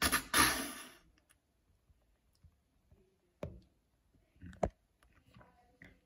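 Handling noise: a loud rustle lasting about a second, then a few scattered sharp clicks and faint taps.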